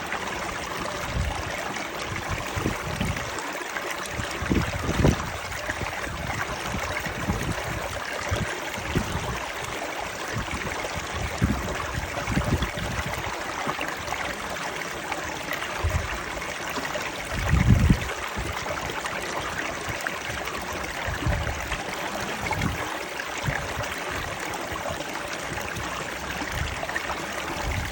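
Stream water flowing steadily with a trickling rush. Irregular low thuds come through underneath, the strongest about two-thirds of the way in.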